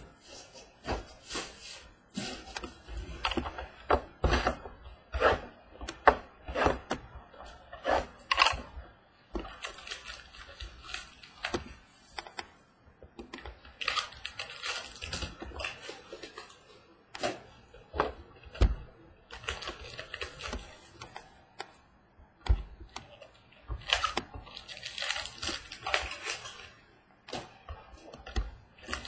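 Hands opening a Topps Museum Collection baseball card box and its foil-wrapped packs: wrappers rustling and crinkling in several spells, with many small clicks and taps of cardboard and cards.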